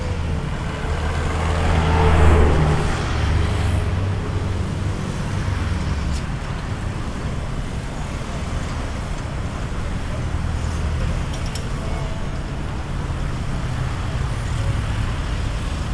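Steady city road traffic: car and bus engines and tyres rumbling past, with one vehicle passing close and loud about two seconds in.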